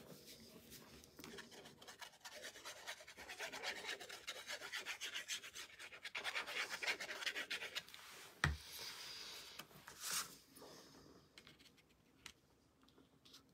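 Fine-tip glue bottle scratching over cardstock as glue is drawn on in quick squiggles, a rapid run of rasping strokes. About eight and a half seconds in there is a single sharp knock, followed by fainter rubbing of paper being pressed into place.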